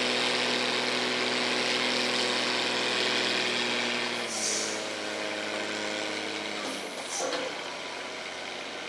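Heavy diesel engine of a loaded log truck running at raised revs with a steady hiss of air, dropping back about four seconds in and again near seven seconds. Short air-brake hisses come as the revs drop.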